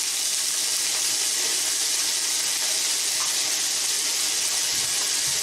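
Diced onions sizzling steadily in hot oil in a non-stick wok, just after being tipped in.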